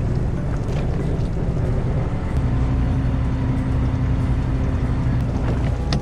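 Fishing boat's engine running steadily, a low hum with a steady rushing noise over it; a slightly higher steady note joins about two seconds in.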